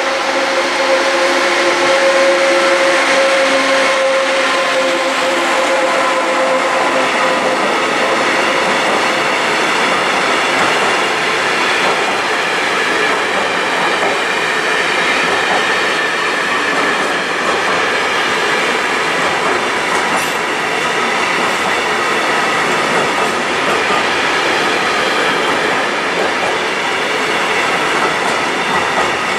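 Electric locomotive hauling a container freight train passes close by, its steady whine fading over the first several seconds, then a long run of loaded container wagons rolls past with a continuous, steady noise of wheels on the rails.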